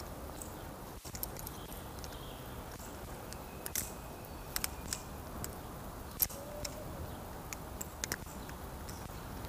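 Squid Industries Bowie Krake Raken balisong (butterfly knife) being flipped: irregular sharp metallic clicks as the handles and blade swing round the pivots and strike each other. They sound over a steady low background rumble.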